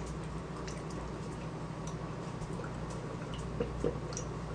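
A person gulping a drink from a metal tumbler: a few faint swallowing and mouth clicks, a little stronger about three and a half seconds in, over a steady low hum.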